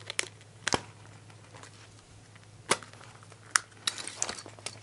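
Sharp plastic clicks of hands working the back-door latch of an autofocus 35mm film SLR to open the camera back: four spaced-out clicks, then a quick run of smaller clicks near the end.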